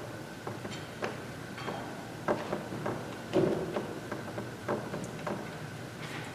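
Irregular light knocks and clicks, about a dozen, scattered unevenly over a low steady hiss of room noise.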